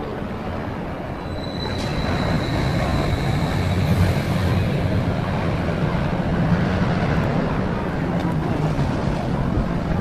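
Incredicoaster steel roller coaster train on a test run, rumbling along its track. The rumble grows louder about two seconds in, with a thin steady high whine for a few seconds.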